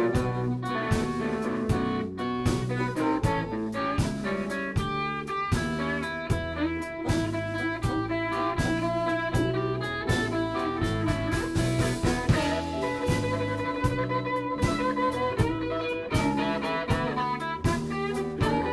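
Live blues band playing an instrumental passage: electric guitar, bass and a drum kit keeping a steady beat, with harmonica playing long held notes in the later part.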